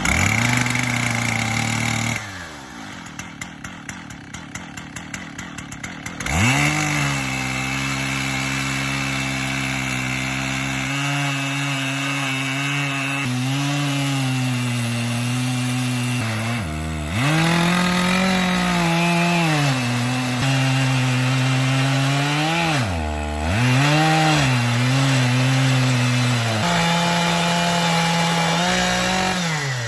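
Chainsaw on an Alaskan chainsaw mill cutting lengthwise through a log. It drops to a slow, ticking idle for about four seconds near the start, then revs back up and runs at high speed in the cut. Its pitch sags and recovers twice as the chain bogs under load.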